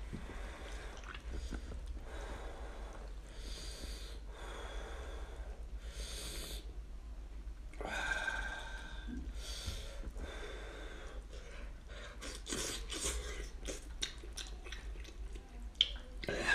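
Eating sounds: a cooked sheep's head pulled apart by hand, the meat and skin tearing from the bone in a series of short, noisy rasps. Near the end comes a sharp wet sound as meat is sucked off a piece of the head.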